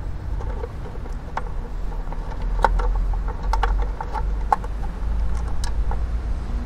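A screw being undone on a BMW R 1250 RS motorcycle's panel: irregular light clicks and taps of the tool and the part, over a steady low rumble.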